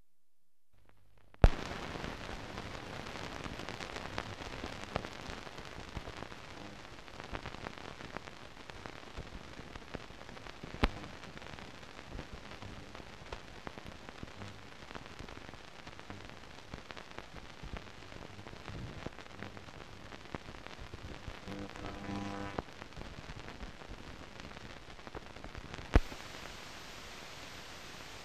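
Hiss and crackle of an old optical film soundtrack. It cuts in with a sharp pop a little over a second in, and louder single pops come about halfway through and near the end.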